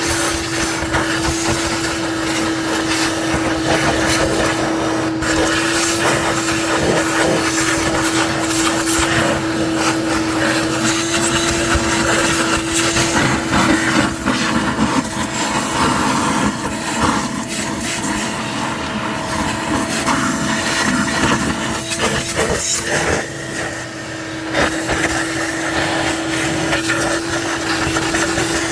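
Shop vacuum running steadily with a constant whine, its tone shifting for several seconds in the middle, while the area under a removed intake manifold is cleaned.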